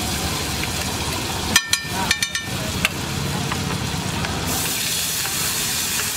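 Butter sizzling on a hot flat iron griddle, with a few sharp clinks about two seconds in. From about four and a half seconds in, a louder hiss starts as water is squirted onto the hot griddle and turns to steam.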